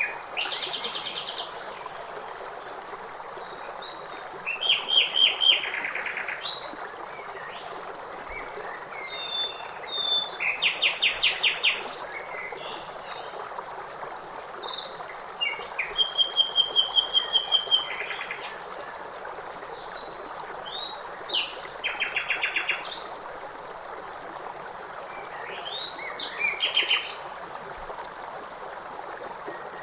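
Several songbirds singing: short, fast trilled phrases repeated every few seconds, with higher chirps between them, over a steady rushing background.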